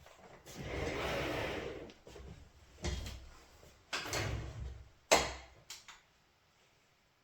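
Household handling noise: a rustle lasting about a second and a half, then a few knocks and a sharp clack just after five seconds in.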